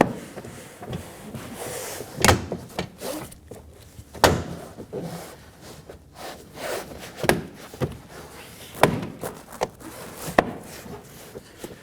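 Toyota Corolla rear door trim panel being pressed onto the door, its plastic retaining clips knocking and snapping into place: a series of sharp thuds, about six loud ones with smaller knocks between.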